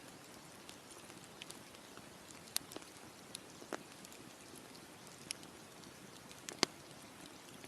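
Wood campfire crackling: a faint steady hiss broken by scattered sharp pops, the loudest about two and a half and six and a half seconds in.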